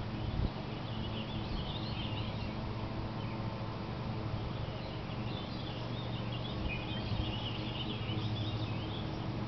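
Small birds twittering in two spells, the first about a second in and a longer one from about halfway through, over a steady low hum.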